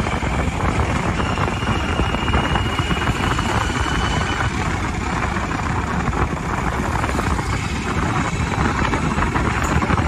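Steady wind buffeting on the microphone and the engine of a motorbike riding along the road.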